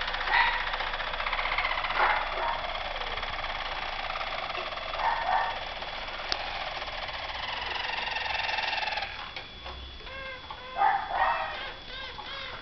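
Harzer Roller canaries singing: a continuous, very fast rolling trill that breaks about nine seconds in into short, separate gliding notes, with a few louder notes near the end.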